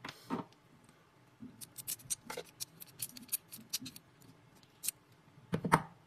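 Faint handling noise from a hand turning a small cut metal key blank: scattered light clicks and ticks, with a louder cluster of knocks and rubbing near the end.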